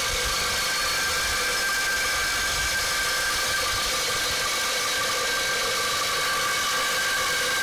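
Milwaukee Sawzall reciprocating saw running steadily at full speed with a Torch Nitrus Carbide blade cutting through a steel pipe, a constant motor whine over the grinding of the teeth in the metal. The saw is fed by its own weight alone, so the cut goes slowly.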